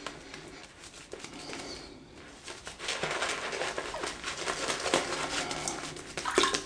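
Shaving brush working shaving-cream lather over a stubbled face: a fine, crackly wet brushing that gets louder about three seconds in.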